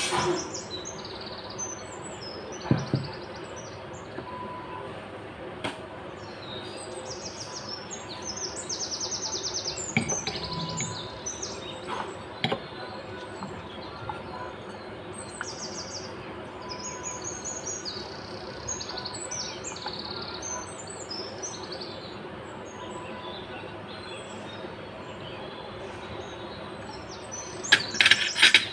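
Small birds chirping and twittering repeatedly in the background, with a few sharp clinks and scrapes of a small spatula against a miniature steel pot as thick rice pudding is scraped out of it. A quick run of louder metal clinks comes near the end.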